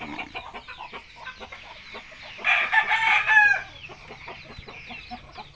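Chickens clucking and calling, with one loud rooster crow about halfway through, lasting about a second.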